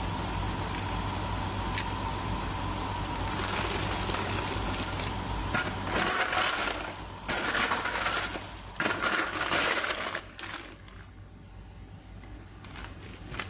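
Clear tube ice cubes clattering and crunching in several loud bursts from about five to ten seconds in, as a plastic plate is scooped through a pile of them. Under it runs the steady hum of the running tube ice machine.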